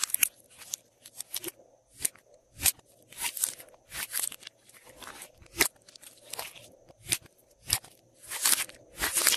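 Hands squeezing and kneading a large mass of fluffy slime in a glass bowl: wet squelches and sharp crackling pops of trapped air bubbles, irregular, about one or two a second.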